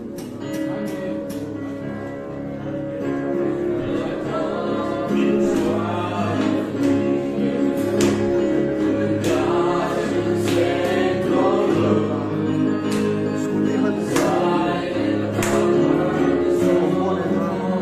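A church choir singing a gospel song in harmony.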